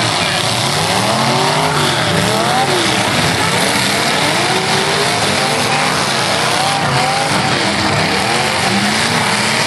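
Several full-size demolition derby cars' engines revving up and down over one another, loud and unbroken, over a constant wash of noise.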